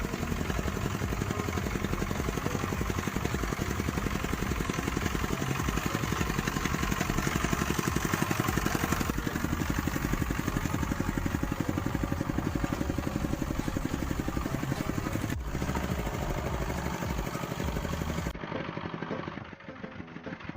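A motorcycle engine running at a steady speed with an even rapid beat. It breaks off near the end and comes back quieter.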